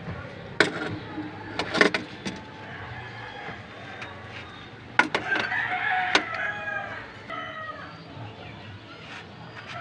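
Sharp metal clinks of a wrench against the timing-belt tensioner and pulley hardware, several in quick succession near the start and again about halfway through. A rooster crows in the background for a couple of seconds around the middle.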